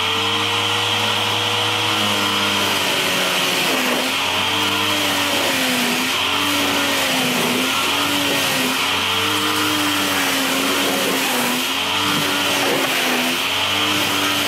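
Sun Joe 2000 electric pressure washer running, its motor's pitch wavering up and down, with the steady hiss of the water jet spraying into a car's engine bay.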